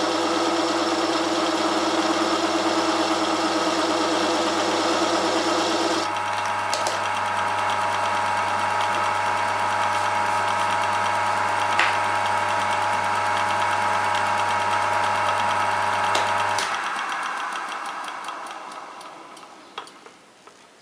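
Homemade metal lathe turning a metal workpiece, the tool cutting and throwing off chips, with a steady motor hum and whine; the pitch of the cut changes about six seconds in. About seventeen seconds in the motor is switched off and the spindle runs down to a stop.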